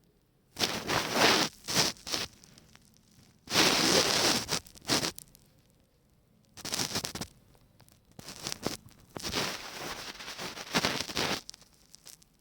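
Rough scratching and rustling in about five bursts of half a second to two seconds each, separated by quiet gaps.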